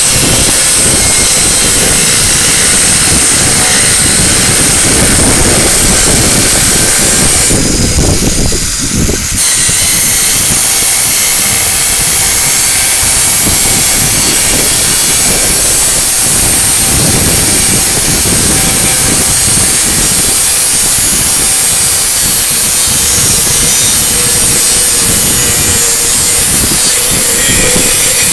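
5-inch angle grinder with a diamond blade running under load, cutting a hard manufactured-stone paving slab. The sound is steady, with a brief letup about eight seconds in.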